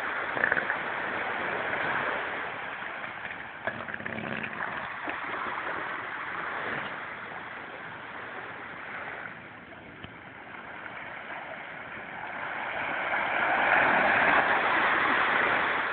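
Surf washing on a beach, a steady wash of water that dips and then swells louder about thirteen seconds in.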